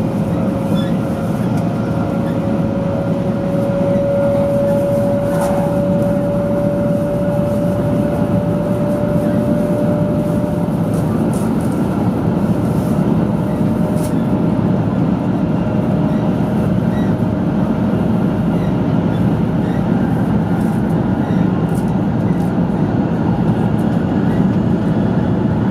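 Cabin running noise of a 500 series Shinkansen travelling at speed through a tunnel: a loud, steady rumble. A faint whine rises slowly in pitch over it and fades out about two-thirds of the way through.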